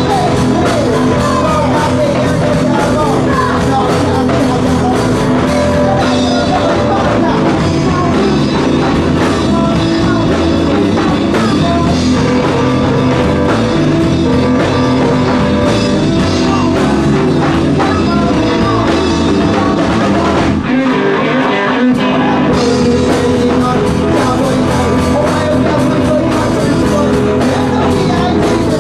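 Loud live rock band: distorted electric guitar, bass and drum kit with sung vocals. The drums and bass drop out briefly about 21 seconds in, then come back.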